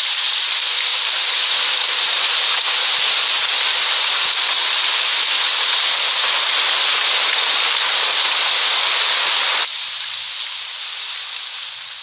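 Heavy rain falling, a steady loud hiss. About ten seconds in, its deeper part cuts off and the rest thins and begins to fade out.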